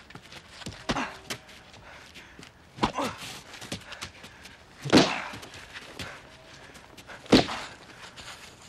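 Punches landing in a film fist fight: a series of heavy, sharp hits a couple of seconds apart. The loudest hits come about five seconds in and again past seven seconds, with lighter knocks between.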